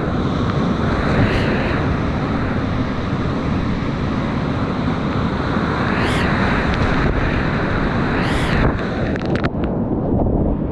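Whitewater rapids rushing loudly around a kayak, heard from right on the boat. The water noise surges louder three times as the boat drops through waves, and a few sharp spray hits on the microphone come near the end.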